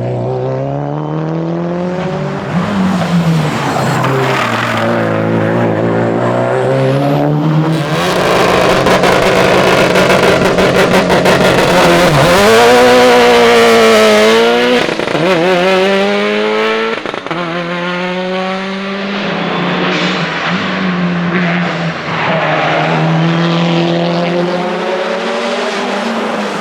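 Subaru WRX STI rally car's turbocharged flat-four engine driven hard, revs climbing and dropping again and again through gear changes and braking. A louder stretch of tyre and road noise runs through the middle.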